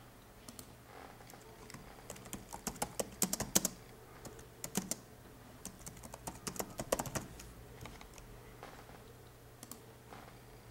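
Typing on a computer keyboard: quick runs of key clicks with short pauses, thinning out to a few single clicks in the last few seconds.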